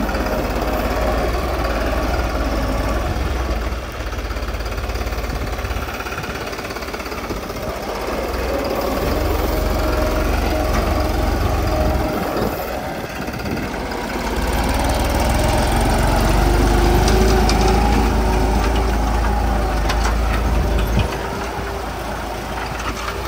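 New Holland 3630 TX 4WD tractor's diesel engine running steadily under load as it pulls a tine cultivator through hard, dry soil.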